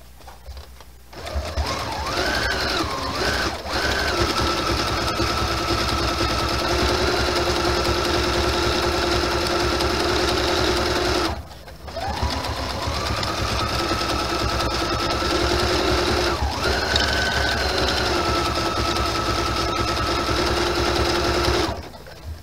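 Brother sewing machine stitching in two runs of about ten seconds each, with a brief stop about halfway through. Its hum glides up in pitch as it comes back up to speed.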